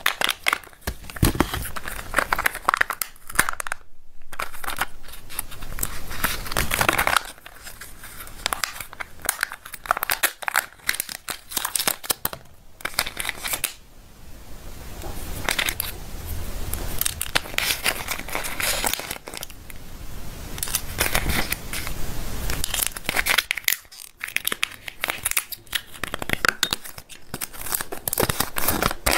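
Close-up crinkling and tearing of Kinder Joy egg packaging being opened by hand: the foil seal peeled off the plastic egg half, the plastic toy capsule and toy pieces handled, and a folded paper leaflet rustling as it is unfolded. Irregular sharp crackles and rustles, with short pauses between bouts.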